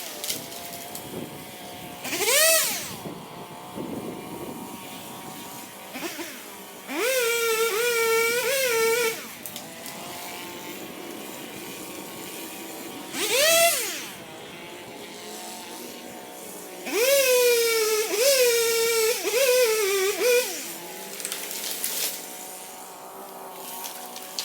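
Chainsaw engine revving in short bursts and cutting wood, with two longer cuts about seven and seventeen seconds in where the pitch sags and wavers under load. It idles quietly between cuts.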